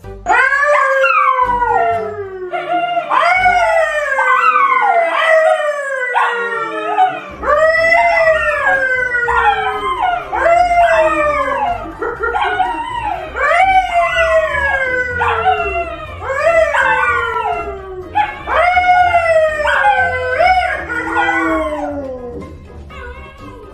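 A man howling and two dogs, a yellow Labrador retriever and a brown poodle, howling along with him in a long run of overlapping wails, each rising then sliding down in pitch. Low background music comes in under the howls about seven seconds in, and the howling fades out near the end.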